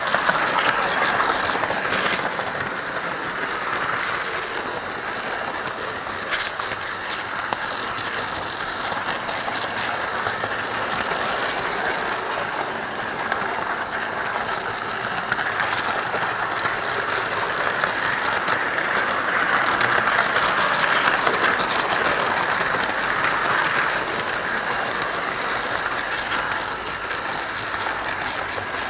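Model railway train running along the track, heard close up from a camera riding on a wagon behind a model Class 31 diesel: a steady whirring rumble of wheels and motor, with a few sharp clicks.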